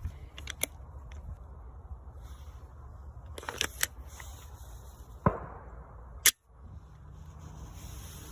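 Sharp clicks and cracks from a 9mm CZ Shadow 2 Compact pistol: a few light clicks, a pair of snaps about three and a half seconds in, then two loud cracks about five and six seconds in, the first with a short ringing tail.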